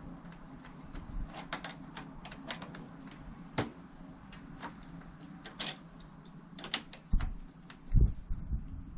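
Irregular run of small clicks and taps from handling the parts of a wall-mounted air conditioner being taken apart, over a steady low hum, followed by two dull thumps near the end.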